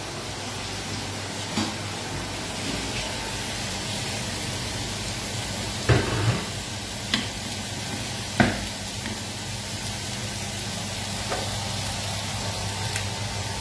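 Frying pan of crumbled leftover broccolo arriminato (Sicilian cauliflower) reheating and sizzling with a steady hiss. A few short knocks sound over it, the loudest about six and eight and a half seconds in.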